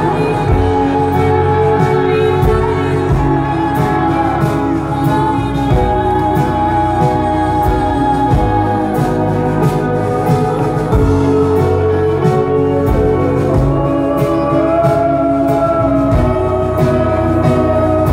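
A woman singing a slow ballad live into a microphone over a band with keyboards, holding long notes; near the end her voice rises to a higher note and holds it.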